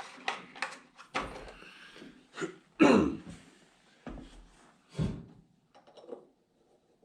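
Tools and small parts being handled and set down: a string of separate knocks and clatters, the loudest about three seconds in and another heavy one about five seconds in, fading to light ticks near the end.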